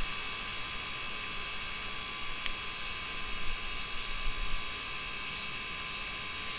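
Steady electrical hum and hiss: several fixed high tones over a light hiss, unchanging throughout, with a few faint low rumbles around the middle.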